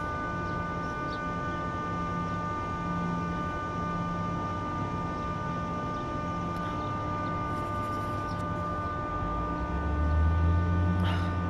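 Steady mechanical whine and hum made of several fixed tones, with a deeper low rumble swelling in about ten seconds in.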